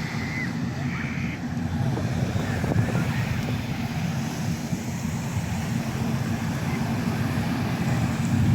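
Wind buffeting the microphone as a steady low rumble, with a faint wash of background noise behind it.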